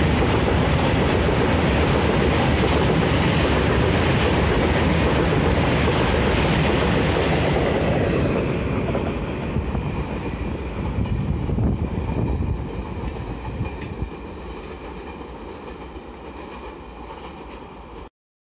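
Freight train of BTPN tank wagons rolling past at close range, their wheels running loudly on the rails. After about eight seconds the noise fades as the tail of the train with its brake van moves away, and it cuts off suddenly near the end.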